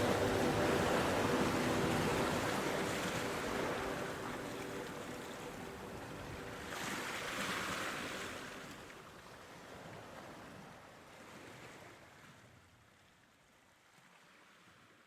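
Sea waves washing onto a shore, rising and falling in several swells and fading out gradually, with the last of a music track dying away at the start.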